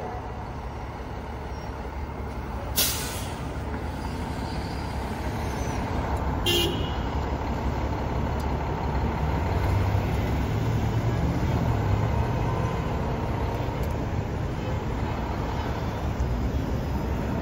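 Fire engine's diesel engine running, then revving harder as the rig pulls away from about nine seconds in. A short hiss of the air brakes comes about three seconds in, and a brief toot about six and a half seconds in.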